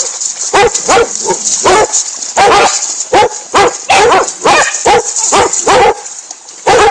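A dog barking over and over, short barks about two a second, with brief pauses about two seconds in and near the end.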